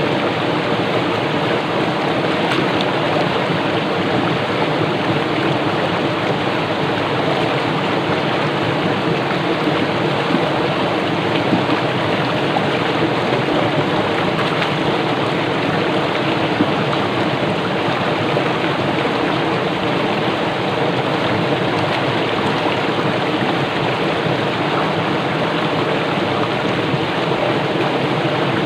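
Fast-flowing small stream rushing and splashing over rocks: a steady, unbroken rush of water.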